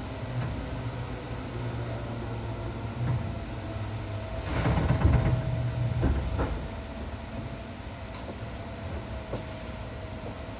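Inside a Seibu 101-series electric train standing at its terminus: the steady hum of its onboard equipment with a faint whine. About halfway through comes a burst of air hiss with a couple of knocks.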